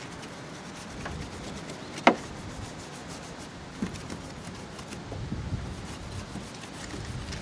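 Soft-bristle detailing brush scrubbing foamy all-purpose cleaner into a car's plastic engine-bay quarter-panel drainage channel: a steady, scratchy rubbing of bristles on wet plastic, with one sharp click about two seconds in.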